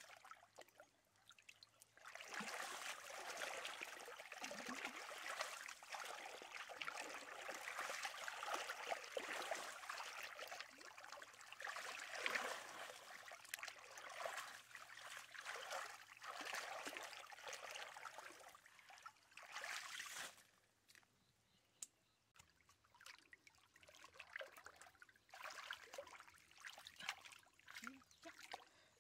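Shallow muddy water sloshing and trickling as hands grope through it, feeling for fish. It is fairly constant from about two seconds in, stops about twenty seconds in, and after that there are only a few scattered small splashes.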